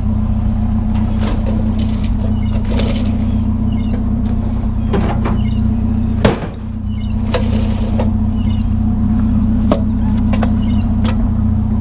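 Vehicle engine running steadily, with scattered knocks and clunks and one louder knock about six seconds in.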